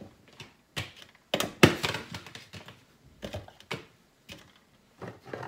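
Carrot chunks knocking into the hard plastic bowl of a food processor as it is loaded by hand: a series of separate knocks and taps, the loudest about a second and a half in.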